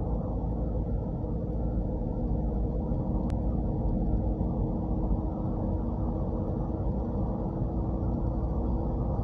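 Steady road and engine noise inside a moving car's cabin, with a faint steady hum under it. There is a single brief click about three seconds in.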